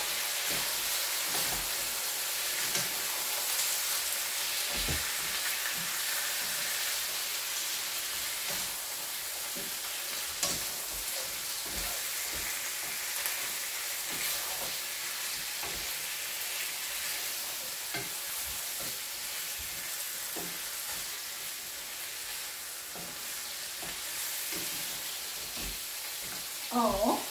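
Chicken pieces sizzling as they fry in a pan on a gas hob, stirred with a wooden spatula, with occasional knocks of the spatula against the pan.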